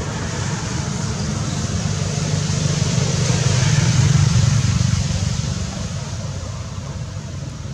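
A low rumble over a steady hiss, growing louder to a peak around the middle and then easing off.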